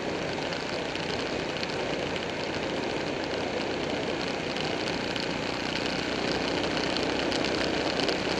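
Buell 1125R's V-twin motorcycle cruising at steady speed on a paved road: a steady rush of wind and road noise mixed with engine drone, rising slightly in loudness near the end.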